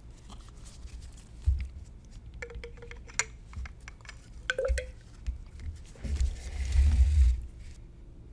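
Handling noise as a small grey CPVC cylinder is slid into a tilted graduated cylinder of water: a few light clicks and taps, some with a brief ring, then a longer rubbing, scraping noise with a low rumble about six seconds in.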